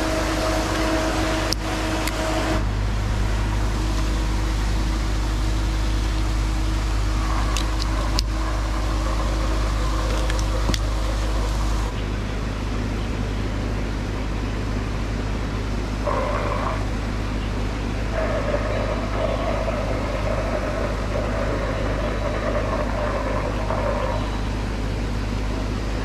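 Steady motor hum and churning water from pond paddlewheel aerators, with a few sharp clicks.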